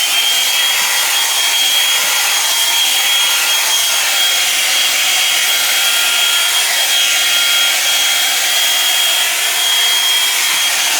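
Drybar Double Shot blow-dryer brush running steadily, a constant high motor whine over a loud rush of air as it dries a section of hair.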